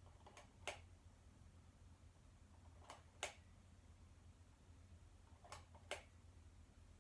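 Hunter Low Profile ceiling fan coasting down after being switched off: three pairs of faint clicks, about every two and a half seconds, over a low hum and otherwise near silence.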